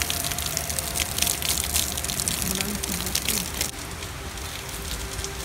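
Heavy rain falling: a dense crackle of close raindrops for the first few seconds, then, after a sudden change, a softer, steady rain hiss.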